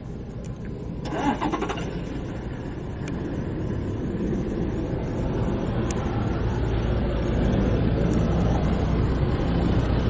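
A motor vehicle's engine running steadily and slowly growing louder, with a brief higher sound about a second in.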